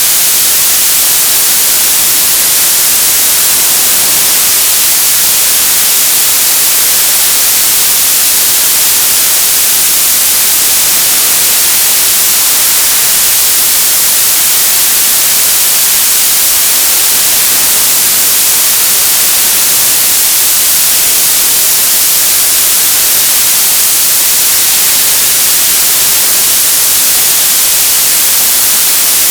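Television static: a loud, steady hiss of white noise, brightest in the high end, that does not change.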